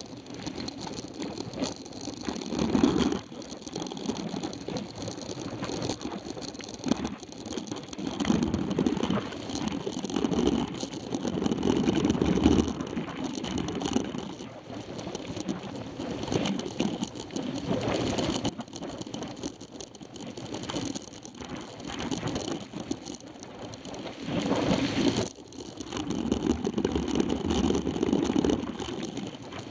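Mountain bike ridden over a dirt road, heard from a camera mounted on its handlebars: tyre noise and the bike and mount rattling over the bumps, with small clicks, swelling and fading every few seconds as the ground changes.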